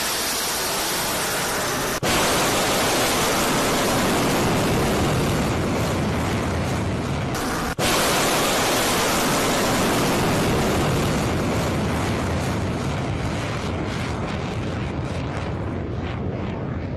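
Missile launch: the rocket motor's loud, steady rushing roar, broken twice by abrupt edits and slowly dying away over the last few seconds as the missile climbs away.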